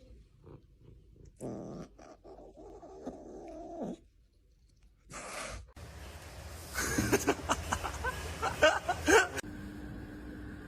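Cat sounds from a run of short home-video clips that cut abruptly from one to the next, with a stretch of sharp knocks and clatter in the middle.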